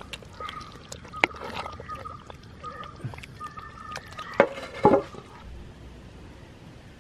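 A ladle stirring and lifting thick mutton curry in a large cooking pot, with sharp knocks of the ladle against the pot about a second in and a few more between four and five seconds. A bird chirps a short repeated note in the background.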